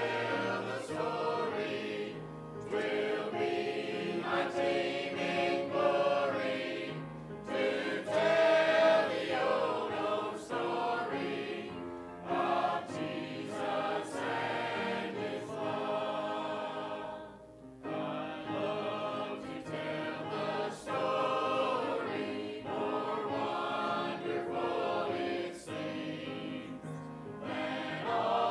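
A small mixed choir of men's and women's voices singing a hymn together, with a brief break between phrases about two-thirds of the way through.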